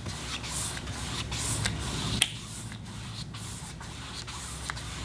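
Paintbrush bristles brushing wet acrylic paint across a canvas in repeated swishing strokes, with one sharp tick about two seconds in.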